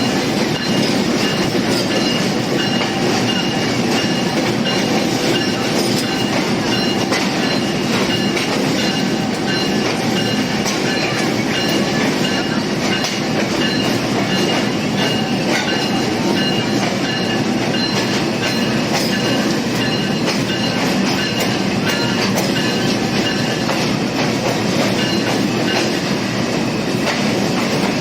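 Passenger train led by a GEU20 diesel locomotive running steadily along the track: a constant rumble of wheels on rails with light clicks and thin, high, steady tones.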